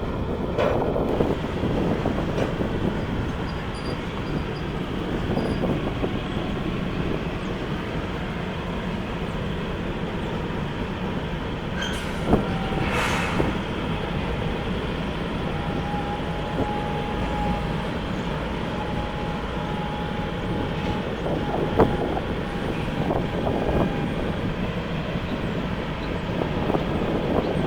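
Freight cars of a CN manifest train rolling past on the rails, a steady rumble with a few sharp knocks. For several seconds in the middle a thin, steady wheel squeal rides over the rumble.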